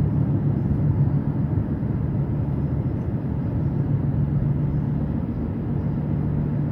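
Steady car cabin noise while driving: a low engine hum over tyre and road rumble.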